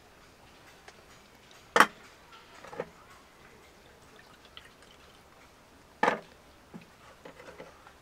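Two sharp knocks about four seconds apart, each followed by a few lighter clicks and clinks.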